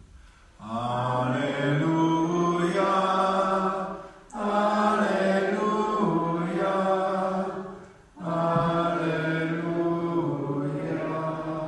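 Liturgical chant: three long sung phrases on held notes with short breaths between them, the sung acclamation before the Gospel at Mass.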